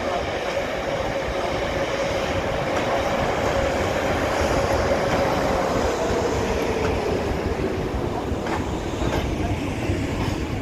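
EP20 electric locomotive and its passenger coaches rolling slowly into the station on arrival: a steady rumble of wheels on rails, with a whine that sinks in pitch past the middle and a few clicks of wheels over rail joints near the end.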